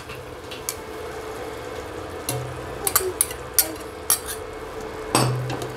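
Metal ladle and spoon clinking against a ceramic bowl and a steel pot as thick soup is poured into a pot of tripe stew. Several sharp clinks come from about two seconds in, the loudest near the end.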